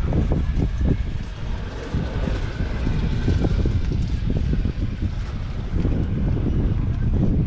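Wind buffeting the microphone over the low, steady rumble of a diesel tractor engine running.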